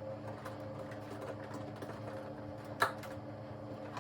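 Light clicks and handling of a plastic ring-light phone holder being fitted onto its mount, with one sharper click near three seconds in, over a steady low hum.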